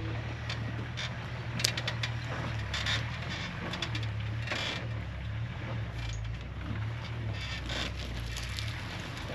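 Jeep engine running steadily at low revs while crawling over rocks, with scattered crunches and clicks of tyres rolling over stones and gravel.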